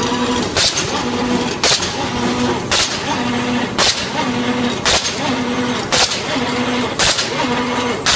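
Automatic welded wire mesh machine cycling: a sharp bang about once a second, one per machine stroke, with a short humming tone repeating between the strokes.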